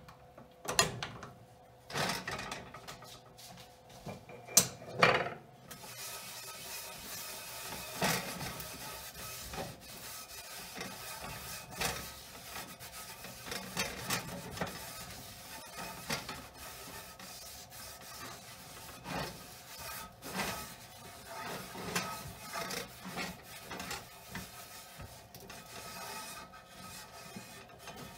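Towel rubbing back and forth over the inside of a cast iron roaster, in repeated wiping strokes, as the freshly washed pan is dried and greased on the stove. A few sharp clanks from the pan being handled come in the first few seconds.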